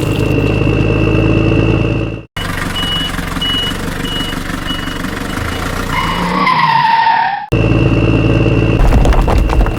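Vehicle engine sound running steadily, cut off abruptly twice. In the middle part there is a beep about every half second, and near its end a falling whine.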